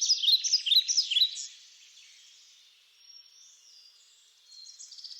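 Small birds chirping in quick repeated rising-and-falling notes for about a second and a half, then falling almost quiet with a few faint whistles, and a buzzy trill starting near the end.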